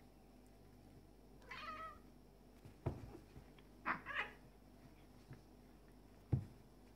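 Two male cats fighting: a short cat yowl about one and a half seconds in, then two quick cries around four seconds. Dull thumps of bodies hitting the floor come just before three seconds and near the end, the last one the loudest sound.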